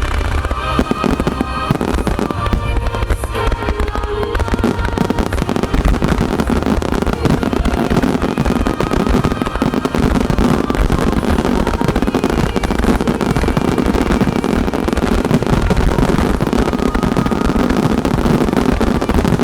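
Fireworks starmine finale: a dense, continuous barrage of aerial shell bursts and crackle. The accompanying music over loudspeakers is heard with it, clearest in the first few seconds.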